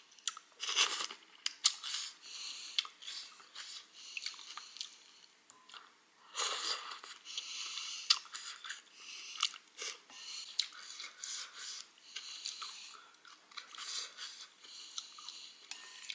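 A person eating chicken glass-noodle soup: wet chewing with many lip smacks and mouth clicks, and two longer slurps, about a second in and about six seconds in.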